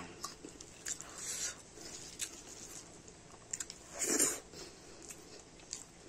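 Eating rice by hand from a steel plate: wet chewing and lip-smacking clicks, with a louder slurping mouthful about four seconds in.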